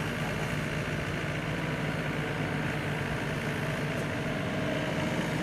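Engine of a small farm vehicle hauling a load of rice sacks, running steadily at an even pitch as it drives along the field edge.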